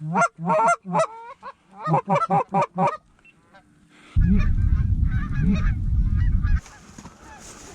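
Geese honking: a quick series of loud honks in the first three seconds, then fainter honking that carries on. A loud low rushing noise cuts in for about two seconds in the middle.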